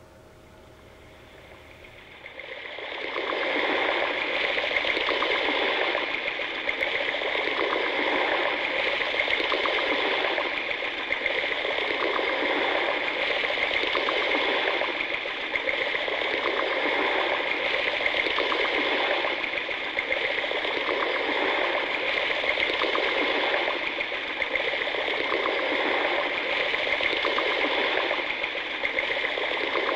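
Rushing, bubbling water fades in over a couple of seconds and then runs steadily, with an irregular gurgling flicker.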